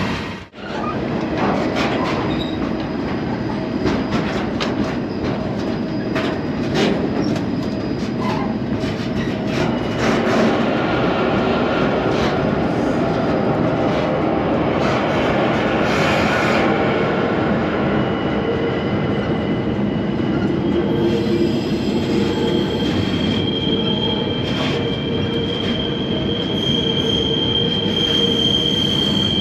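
Freight train rolling, heard from aboard a car: a steady heavy rumble with rattling and clanking of the car. A high, steady wheel squeal comes in a little past the middle and holds to the end.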